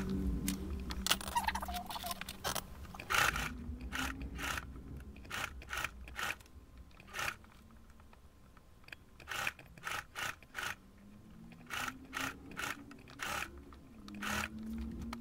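Sheer gathered fabric rustling and scraping in short, irregular strokes as it is eased under a domestic sewing machine's presser foot. A low motor hum runs during the first few seconds, then fades.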